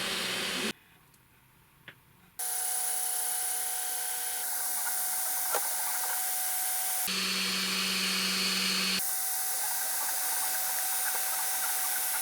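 3D printer running: steady whining tones from its stepper motors over a fan-like hiss, the pitch of the whine changing abruptly several times, with a brief near-silent gap holding a single click about a second in.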